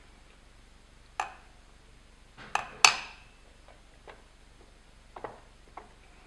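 A 1968 BMW 2002 steel pedal box being handled and tilted on a wooden board: a series of sharp metal knocks and clinks, the loudest a quick cluster of three about two and a half to three seconds in.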